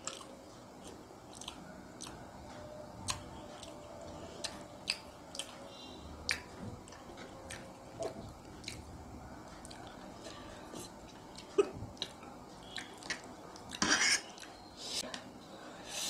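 A person chewing spicy instant fire noodles, with scattered small clicks and smacks throughout. A sharp louder click about eleven and a half seconds in and a short louder burst of noise around fourteen seconds stand out.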